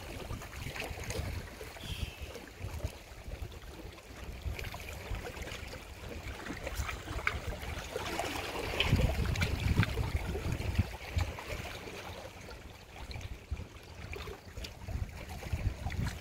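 Small waves lapping and splashing against shoreline rocks, with low wind rumble on the microphone that swells about nine to eleven seconds in.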